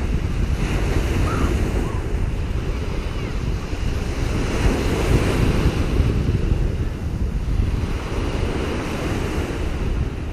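Small waves breaking and washing up a sandy beach in a steady surf, swelling to a louder break around the middle, with wind buffeting the microphone.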